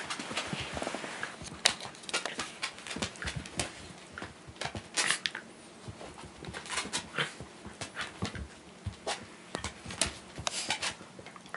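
Two Shiba Inu play-fighting and mouthing at each other: an irregular run of quick clicks and scuffles from jaws, claws and bodies, with dog breathing.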